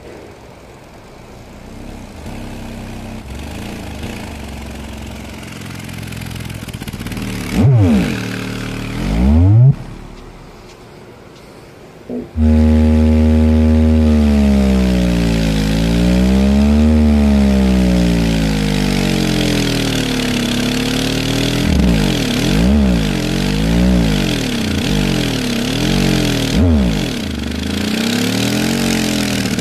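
Sundown Audio SA-8 V3 8-inch subwoofer driven on a test bench with low bass test tones: two short sweeping glides, then, about twelve seconds in, a loud continuous low buzzing tone whose pitch slowly wavers up and down as the cone moves at large excursion.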